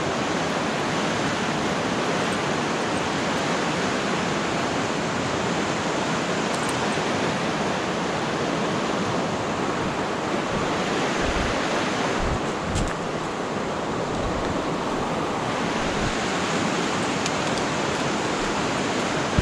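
River water rushing steadily, an even roar. A few low bumps come about twelve seconds in.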